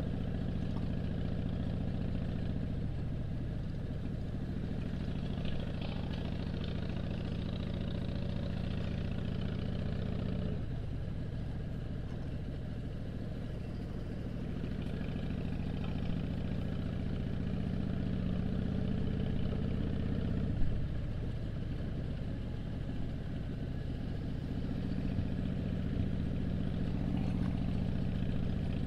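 2007 Harley-Davidson Dyna Street Bob's air-cooled Twin Cam 96 V-twin running while riding. The engine note dips about ten seconds in and again around twenty seconds, where there is a single sharp knock.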